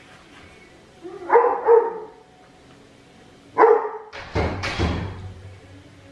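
A dog barking: two quick barks about a second in, a third near the middle, then a louder noisy burst with a low thump.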